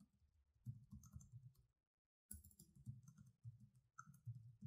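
Faint typing on a computer keyboard: a run of quick, irregular key taps, broken by a short pause about two seconds in, then resuming.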